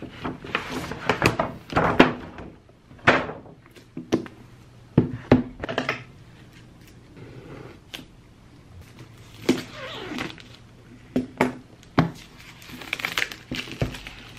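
Unboxing handling noises: a paper shopping bag rustling, a laptop box knocked and set down on a table in irregular thunks, and scissors working at the box's plastic wrap.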